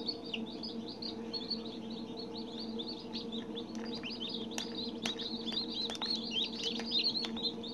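Baby chick peeping: a rapid, unbroken run of short, high chirps, each dropping in pitch, over a steady low hum.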